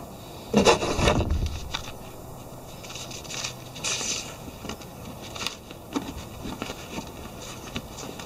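A waterproof roll-top crash bar bag being handled and packed: its stiff fabric rustles and crinkles and scrapes. There is a loud scuffing burst about half a second in, then scattered shorter rustles and clicks.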